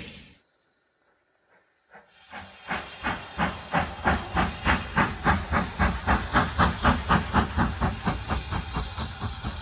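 BR Standard Class 4 2-6-4 tank locomotive 80151 working hard as it approaches, its steam exhaust beating at about three beats a second. After a brief dropout near the start, the beats fade in about two seconds in and grow louder.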